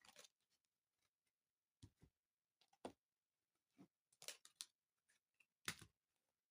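Near silence broken by a handful of faint, short clicks and rustles at irregular moments, the clearest about a second from the end.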